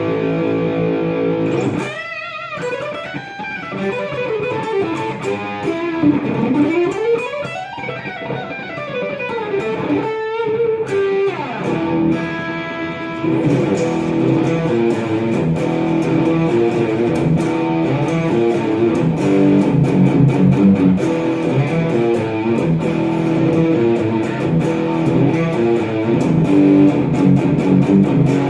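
Epiphone Les Paul Studio electric guitar played through a Marshall MG50FX amp. It opens on a held chord, then notes slide up and down in pitch for about ten seconds, and from about thirteen seconds in it plays a fast, steady riff.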